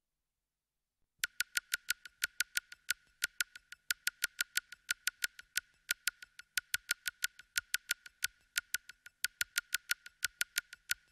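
A fast, slightly uneven series of sharp, high-pitched strikes all on one note, about four or five a second, like a small bell or chime being struck repeatedly. It starts about a second in after near silence.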